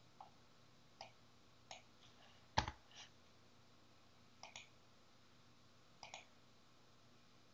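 Computer mouse clicking: about nine sparse, sharp clicks, some in quick pairs, the loudest one about two and a half seconds in, over a quiet room.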